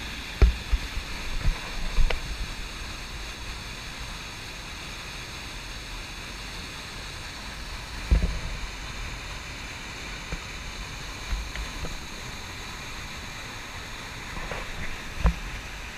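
Steady rushing roar of a waterfall's whitewater pouring through a narrow rock channel, with a few short low bumps on the microphone.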